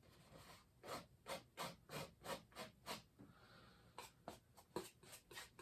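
Faint palette-knife strokes on canvas: a metal knife tapping and scraping thick oil paint on in short, quick dabs, about three a second, with a brief pause midway.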